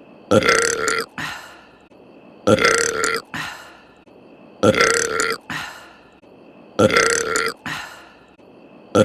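A cartoon woman's loud burp, the same voiced burp looped over and over. It comes about every two seconds, each time a long belch followed by a short second part, four times in a row with a fifth beginning at the end.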